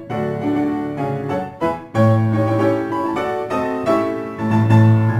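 Background piano music: an instrumental melody of notes struck one after another.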